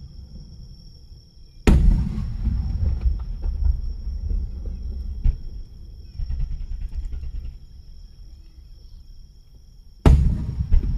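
Two fireworks shells bursting about eight seconds apart, each a sharp bang followed by a low rumble that fades over several seconds.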